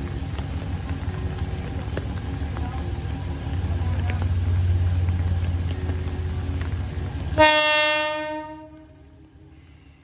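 Alishan Forest Railway diesel locomotive running slowly, its engine rumble growing louder about a third of the way in, then one short horn blast near the end that fades away within about a second. Rain hiss underneath.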